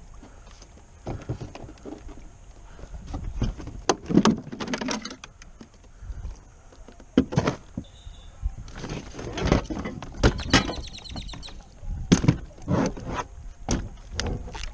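Irregular knocks, thumps and rattles of gear against a fishing kayak, with a quick run of fine clicks about ten and a half seconds in.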